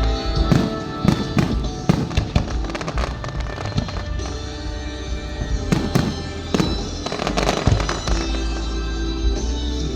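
Fireworks going off in a run of irregular sharp bangs and pops, over background music.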